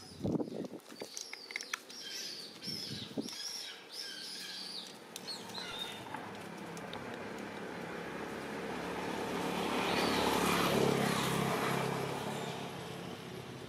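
Short high chirps in the first few seconds, then a motor vehicle passing: its engine sound swells to its loudest about ten seconds in and fades away.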